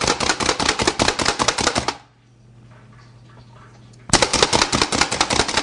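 Hand-pumped plunger food chopper mincing garlic cloves: a fast run of sharp plastic clacks, many a second, that stops for about two seconds midway and then starts again.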